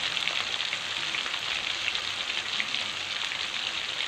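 Chicken drumsticks deep-frying in hot oil in a pan: a steady sizzle with dense, fine crackling.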